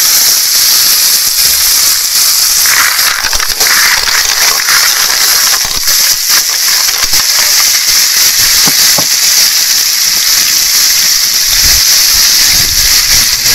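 Pan of shellfish, garlic and oil sizzling steadily, a loud hiss with scattered crackles.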